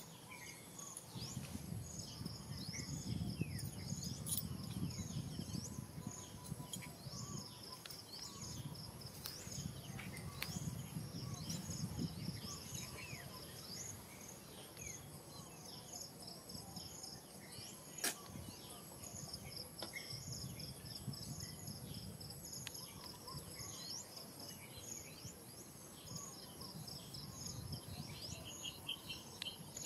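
Outdoor ambience of insects chirping in a steady pulsing rhythm, with scattered short high chirps over it. A low rumble comes and goes underneath, and a single sharp click sounds about halfway through.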